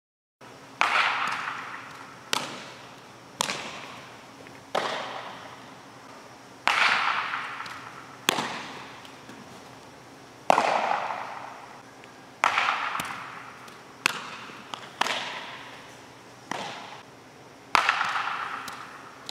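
Baseballs smacking into leather gloves, about a dozen sharp pops every one to two seconds. Each pop rings on in the long echo of a large indoor training hall.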